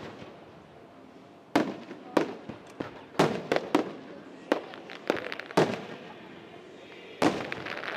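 Aerial fireworks shells bursting overhead: a string of sharp bangs, one every half second to a second, each with an echoing tail. A quick cluster of reports comes near the end.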